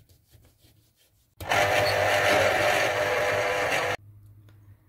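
Electric citrus juicer running as an orange is squeezed: a loud, even noise with a steady low hum, starting about a second and a half in and cutting off suddenly about four seconds in. Before it come a few faint ticks of the knife finishing the cut through the orange.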